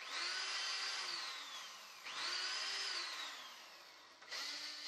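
Cordless drill running into plywood, three runs of its motor whine: the first two each hold steady for a moment, then wind down in pitch as the trigger eases off, and the third starts near the end.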